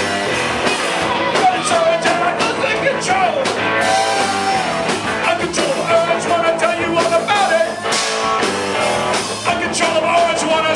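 A live band playing a rock-and-roll song, with a singer's voice holding and bending long notes over it.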